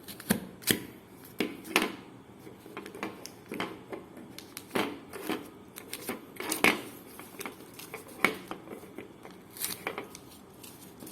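Paper rustling and being handled, with irregular sharp clicks and snaps from a plastic stapleless stapler being pressed on the sheets. This attempt fails to fasten the paper.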